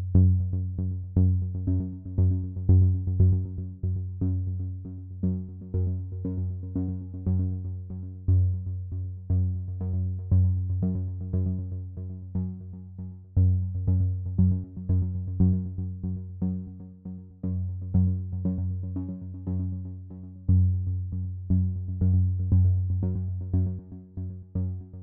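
Background music: an electronic synthesizer tune with a steady, quick beat and a strong bass line.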